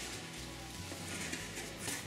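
Cardboard scraping and rustling as a boxed vinyl record set is slid out of its cardboard protective box, over faint steady background music.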